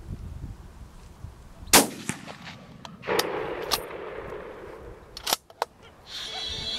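A single gunshot about two seconds in, the loudest sound here, that drops a wild boar. A rough noisy sound follows for about two seconds, then two sharp clicks, and near the end a high steady tone begins.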